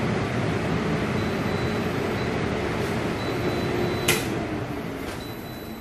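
Philips HD9270 Essential XL air fryer's fan running steadily during a 200 °C browning cycle. About four seconds in there is a sharp click as the cycle ends, and the fan starts to spin down, its hum falling in pitch and fading.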